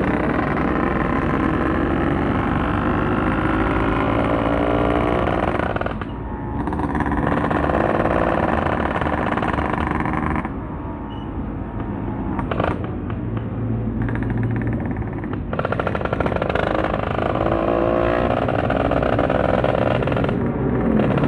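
Motorcycle engine under way, its pitch climbing in several long rises as it accelerates. It eases off about six seconds in and again for several seconds in the middle, then pulls up again.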